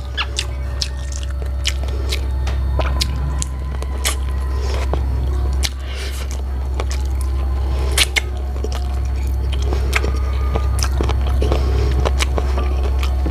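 Close-mic'd chewing and biting of braised chicken feet (chicken feet adobo): irregular wet mouth clicks and smacks from the teeth working the skin and small bones, over a steady low hum.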